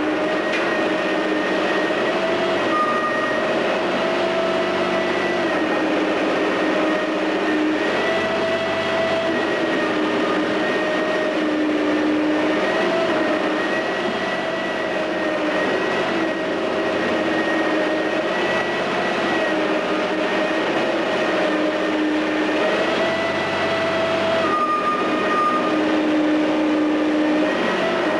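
Menck M260 cable excavator's diesel engine running steadily under load, its pitch rising and falling every few seconds as the machine works, over a constant rumbling noise of the demolition.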